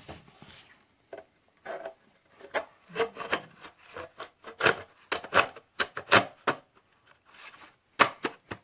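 Hands handling a battery chainsaw: an irregular run of short scrapes and knocks, the loudest about six and eight seconds in.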